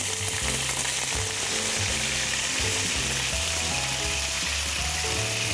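Pieces of raw lamb sizzling steadily as they fry in hot oil in a frying pan, stirred with a wooden spoon.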